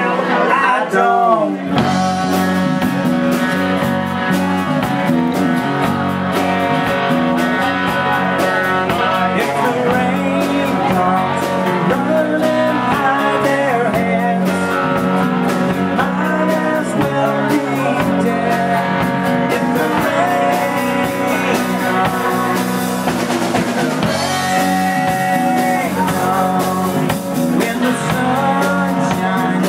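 Live rock band playing: acoustic guitar, electric guitar, electric bass and drum kit, with a man singing. The drums and bass come in about two seconds in, then keep a steady beat.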